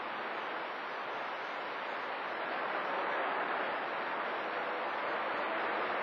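Steady static hiss from a CB radio receiver tuned to channel 28, with no station coming through the noise.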